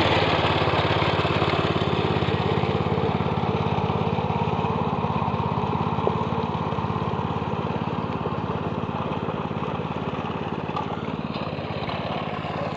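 Small engine of a hand tractor (plough machine) running steadily at working speed while levelling paddy mud, growing a little quieter towards the end.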